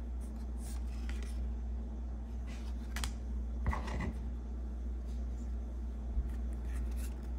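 Baseball cards being flipped and slid across one another in the hands: a handful of short papery swishes and flicks, the clearest about three and four seconds in, over a steady low hum.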